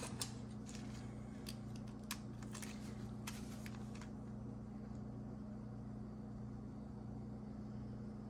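Steady low hum, with a few faint scattered clicks of small handling noises in the first half.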